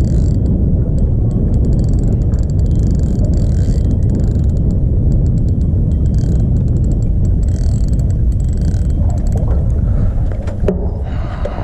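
Heavy wind rumble on the microphone, with a fishing reel clicking in short spells while a hooked fish is being fought.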